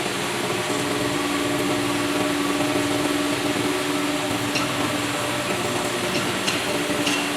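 CNC machine tool running while machining metal: a steady mechanical hum with a strong low tone that sets in about a second in, and a few light clicks near the end.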